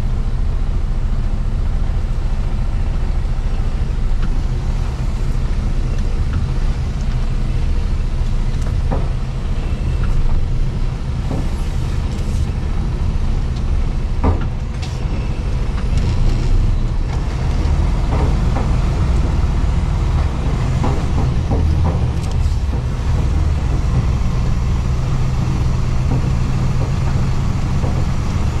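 Heavy truck's diesel engine running steadily at low speed, with scattered short knocks and rattles.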